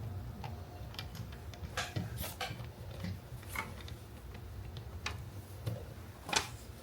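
Scattered light clicks and taps of plastic toy parts being handled as a plastic cap is fitted back onto the container, over a low room hum; the sharpest click comes near the end.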